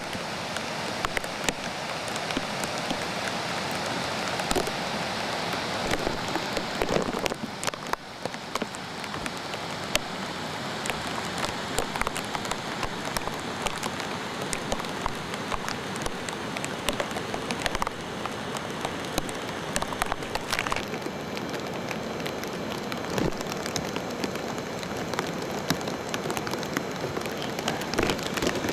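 Steady rain, with many single drops striking close to the microphone as sharp ticks.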